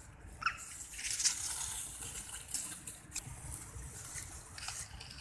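Dry leaf litter rustling and crackling as macaques shift about on it, with a brief high rising squeak about half a second in.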